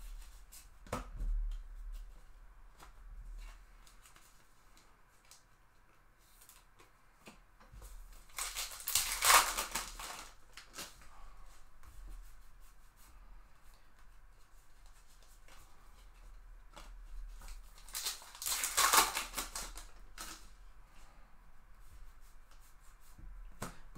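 A stack of baseball trading cards handled and flipped through by hand: light clicks and ticks of card edges sliding past each other, with two louder rustling scrapes of about two seconds each, a little before the middle and again about three-quarters through.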